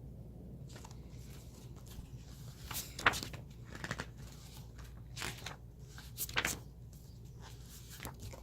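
Pages of a book being turned and handled: several short paper rustles and flicks, the sharpest about three seconds in, over a low steady hum.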